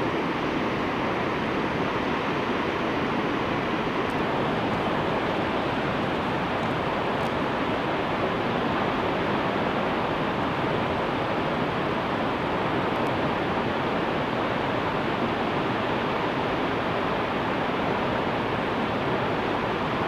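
Steady rush of a large waterfall plunging into a rocky gorge, an even wash of falling water that does not change.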